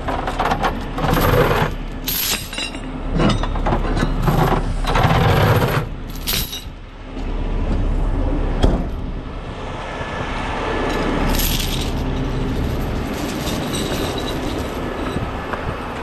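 Steel safety chains clanking and rattling in irregular bursts as they are pulled out of a tow truck's chain compartment and dropped onto pavement, over the steady low drone of the truck's idling engine while the air system builds pressure.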